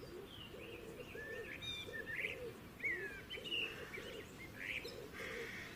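Birds chirping and calling: a string of short rising and falling chirps, with a lower repeated call underneath, over faint outdoor background noise.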